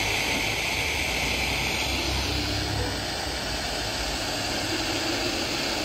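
Steady hiss of radio static from a Sharp QT12 radio cassette player's speaker, tuned off-station, with a low hum underneath.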